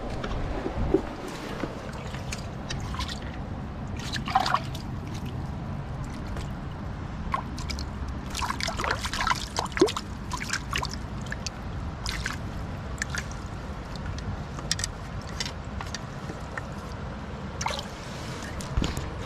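Mountain stream running and trickling over rocks, with scattered sharp ticks and small splashes throughout; the loudest come about a second in, around four seconds in and near ten seconds in.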